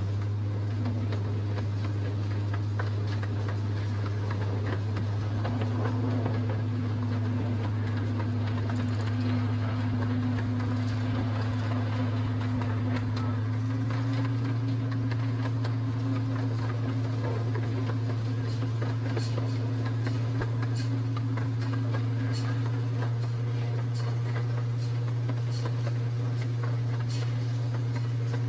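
Miniature train's engine running with a steady low drone; its pitch steps up a little about halfway through as it picks up speed. Faint irregular clicks come through in the second half.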